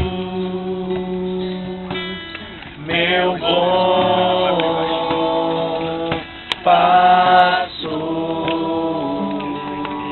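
Worship song: singing with long held notes over acoustic guitar.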